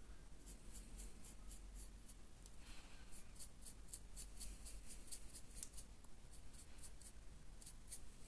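Stiff-bristled dry brush, wiped almost free of paint, scratching over the raised sculpted sandbags of a miniature base in quick, evenly repeated strokes, several a second. The sound is faint.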